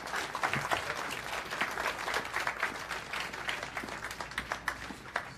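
Small club audience applauding, a dense patter of hand claps that slowly thins out toward the end.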